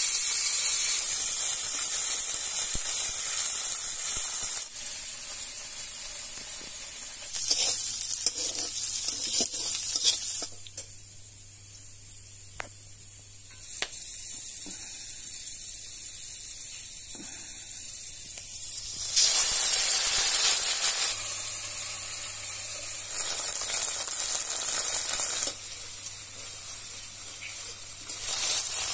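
Food frying in hot oil in a pan: a steady sizzling hiss that jumps between louder and softer stretches at several abrupt cuts, with a few light clicks.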